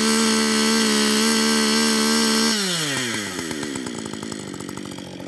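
Two-stroke petrol chainsaw held at high revs for about two and a half seconds, then the throttle is released and it drops back to idle.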